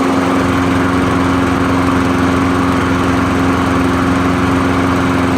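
Walk-behind lawnmower's small engine running steadily at a constant speed. It is running again now that the bent kill-switch tab no longer grounds out the ignition.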